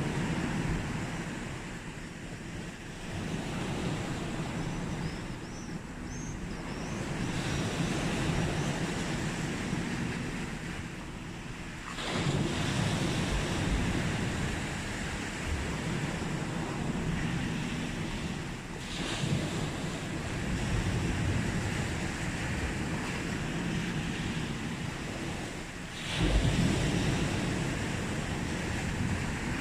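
Sea waves breaking and washing up the beach. A fresh wave surges in about every seven seconds, and the last one, near the end, is the loudest.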